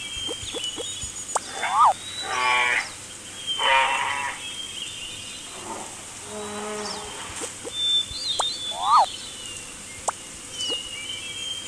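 A string of animal calls over birdsong: two long calls with many overtones a couple of seconds in, a lower call around the middle, and short zigzag chirps near the start and end, with high bird whistles through it all.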